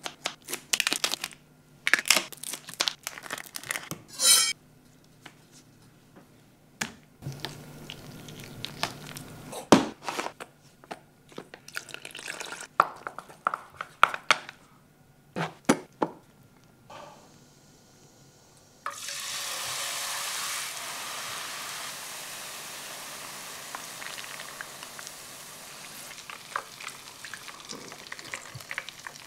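Kitchen scissors snipping through a large prawn's shell and legs in sharp clicks, then chopsticks stirring tempura batter in a steel bowl with light clinks. About two-thirds of the way in, a steady sizzle starts suddenly as the battered prawn goes into hot oil in a frying pan and deep-fries.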